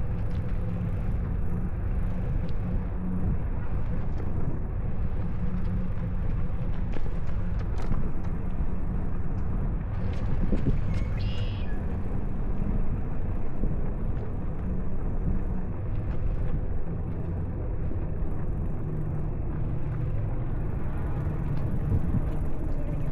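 Wind rumbling over an Insta360 X4 camera's microphone during a ride, a steady low rushing noise with no clear engine note. A brief high-pitched sound cuts through about eleven seconds in.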